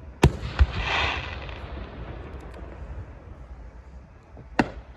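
Fireworks going off: two sharp bangs in quick succession, followed by a short hissing burst. Another bang comes near the end.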